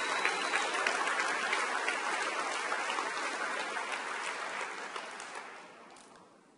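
Large audience applauding steadily, then dying away over the last second or so.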